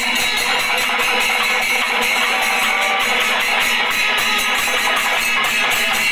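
Panchavadyam ensemble playing: Kerala temple drums (timila and maddalam) with ilathalam cymbals, struck in a dense, fast, continuous rhythm at a steady loud level.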